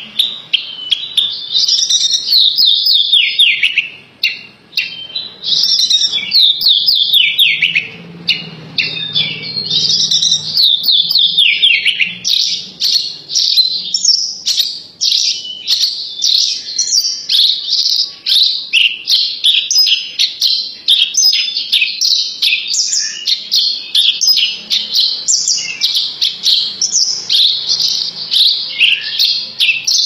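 Branjangan (Javan bush lark) singing a fast, almost unbroken run of varied high chirps and trills, easing off briefly about eight seconds in before going on.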